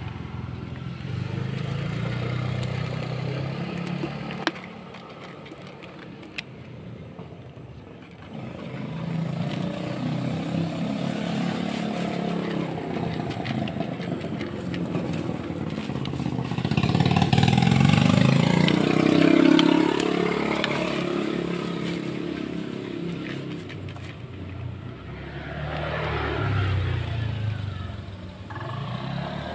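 Motor vehicles passing on the road, their engine noise swelling and fading. The loudest pass is about seventeen to twenty-one seconds in, and another comes near the end. A couple of sharp clicks come around five and six seconds in.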